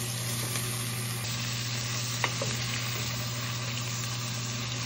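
Kielbasa, onions and green peppers sizzling in hot oil in a pot, stirred with a wooden spoon, over a steady low hum. A couple of light knocks come about two seconds in.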